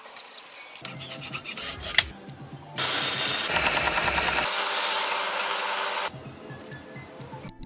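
Hacksaw sawing a thin wooden strip in irregular strokes, then about three seconds of louder steady rasping of wood being shaped for a knife handle.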